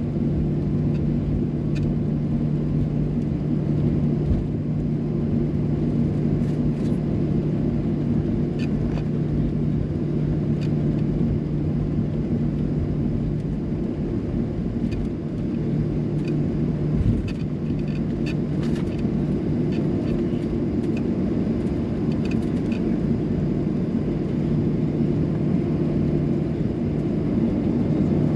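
Airliner engines running, heard from inside the passenger cabin as a steady low rumble with a constant hum, around the time of the takeoff.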